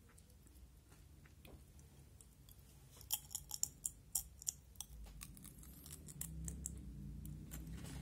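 Potato chip bitten and chewed: a quick run of sharp, crisp crunches about three seconds in, lasting under two seconds. A low rumble rises over the last few seconds.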